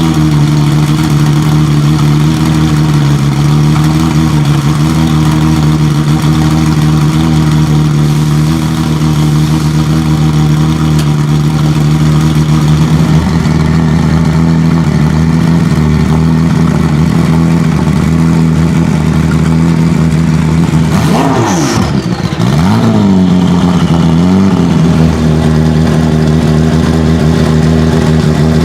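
Porsche 997 GT2 RSR's twin-turbo 3.9-litre flat-six running at steady revs. About three quarters of the way through, the revs dip and swing back up, with a short falling whistle, before settling steady again.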